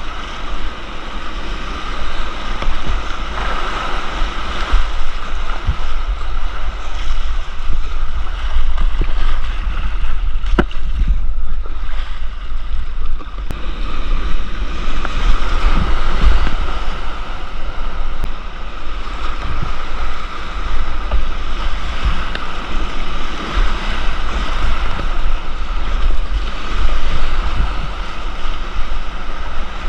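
Rushing whitewater of a creek's rapids, with wind buffeting the microphone and a few sharp knocks.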